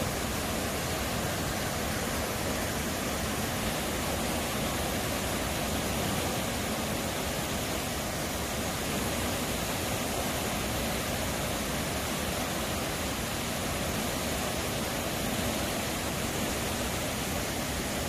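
Mountain stream pouring over rocks and small waterfalls into a pool: a steady, even rush of water.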